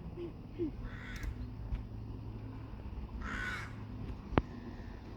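Two harsh, cawing bird calls, one about a second in and a longer one about three seconds in, over a steady low background hum; a short sharp click sounds near the end.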